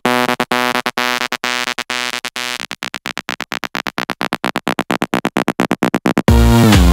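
House dance music in a breakdown: a synth chord chopped into rapid pulses that speed up into a build, with no bass or kick drum. The full beat with bass drops back in about six seconds in.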